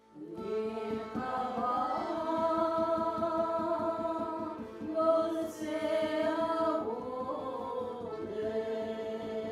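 Music with a singing voice holding long notes and sliding from one pitch to the next.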